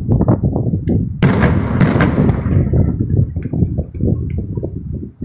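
Aerial fireworks going off in quick succession: a dense run of low booms, with two sharp, loud bangs about a second and two seconds in.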